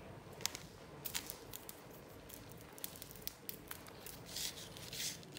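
A stiff sand-art sheet being handled and tilted on a table: scattered light taps and paper rustles, with two short hissing swishes near the end.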